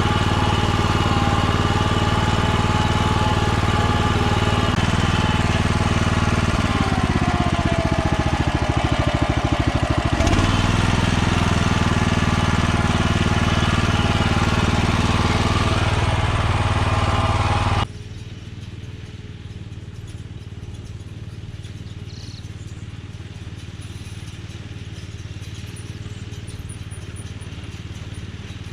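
Small engine of a BCS walk-behind tractor running a Caeb hay baler at a steady speed. Between about 7 and 10 seconds in, its note sags and then recovers. About 18 seconds in, the sound drops abruptly to a quieter, lower engine sound that carries on to the end.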